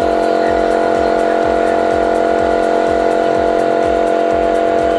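Orion Superjet 100-SPX electric pressure washer running steadily at its fifth setting, spraying through a 25-degree nozzle: a steady motor-and-pump hum with a regular low pulsing about four or five times a second.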